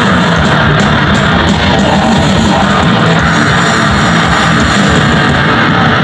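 Live punk band playing loud, with distorted electric guitar and drums.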